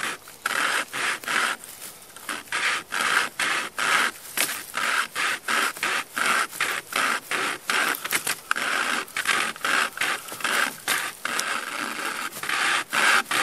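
Wire saw drawn back and forth through wood, a rasping stroke about twice a second.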